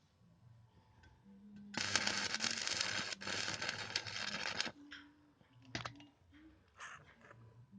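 Electric arc welding with a self-oscillating switch-mode inverter welder. About two seconds in, a steady crackling arc runs for roughly three seconds and then cuts off. A few short crackles and ticks follow, as the arc is briefly struck again.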